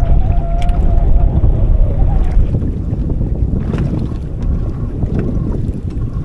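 Wind buffeting the microphone on a small boat: a loud, steady low rumble, with a few faint clicks or knocks scattered through it.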